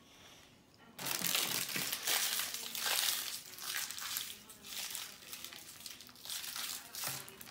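A small candy wrapper crinkling as it is picked and pulled open by hand. It starts abruptly about a second in and rustles on and off until just before the end.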